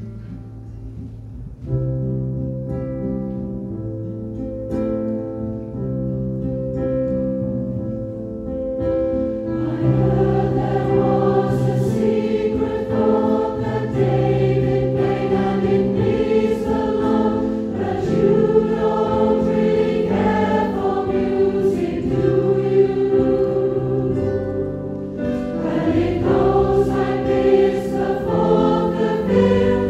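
Mixed choir of men's and women's voices singing; it starts soft with low held notes and swells fuller and louder about ten seconds in.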